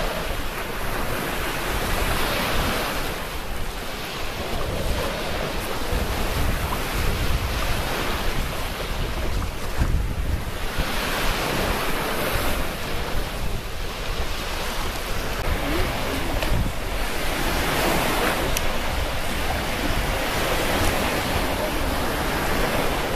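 Surf breaking on a sandy shore, swelling every few seconds, with wind buffeting the microphone in a steady low rumble.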